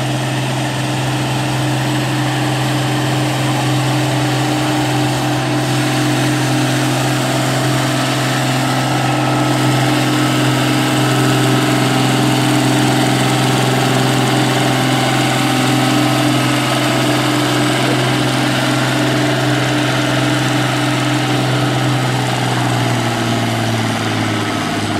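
Oliver farm tractor engine working under heavy load while pulling a weight-transfer sled, a steady loud drone whose pitch sags slightly near the end as the engine lugs down.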